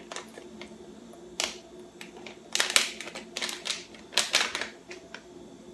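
Plastic candy packet crinkling and crackling in several short bursts as it is handled and opened to get at strawberry gummies.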